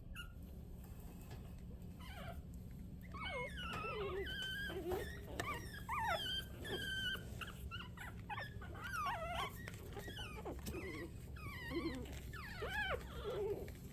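Three-week-old Shih Tzu puppies whimpering and squeaking: many short, high-pitched calls that bend up and down in pitch, starting about three seconds in.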